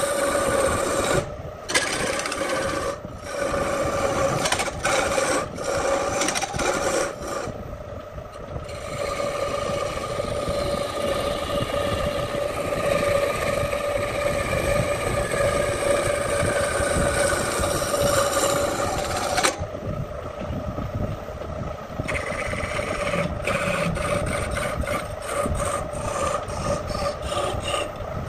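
Electric wood lathe running with a steady hum while a hand-held turning tool cuts the spinning wooden disc, a rasping scrape of shavings. The cutting noise breaks off briefly a few times, with a longer gap about twenty seconds in.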